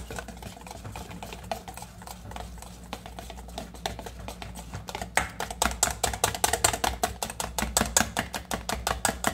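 Wire whisk beating a thick egg-and-flour batter in a stainless steel bowl: a fast, even clicking of the wires against the metal, several strokes a second, working the flour in until smooth. The clicking is softer at first and grows louder about halfway through.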